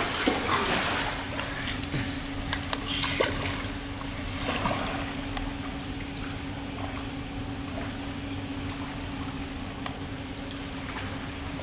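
Remote-control toy submarine's small electric motor running with a steady hum, over water lapping, with a few light clicks.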